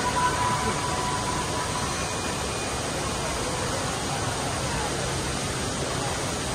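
Steady rushing hiss of spray and mist pouring from the Rain Vortex indoor waterfall.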